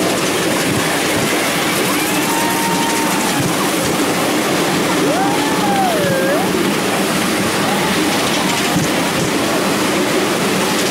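Miniature steam locomotive LNER 458 running along the track with a train of riders: a steady rushing noise of steam, wheels on rails and moving air. A few brief squeals glide up and down in pitch over it.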